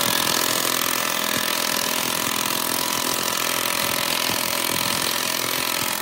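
An engine running steadily, with a strong even hiss over a steady hum.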